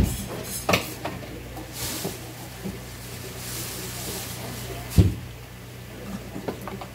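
Knife chopping and scraping small whole fish on a wooden cutting board: a sharp knock at the start, another under a second in and the loudest about five seconds in, with rasping scrapes in between. A steady low hum runs underneath.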